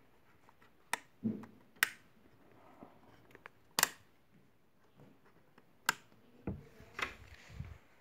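Sharp clicks of wall switches being pressed, the loudest a little under four seconds in, five clicks in all, with a few low thumps of handling near the end.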